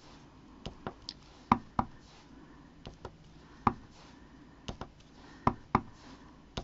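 Carved eraser holly-leaf stamp being inked and pressed onto paper on a tabletop: a string of sharp taps at irregular intervals, often in close pairs.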